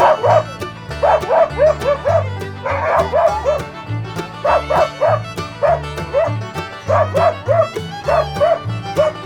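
A dog barking over and over in quick runs of short barks, over a backing track of music.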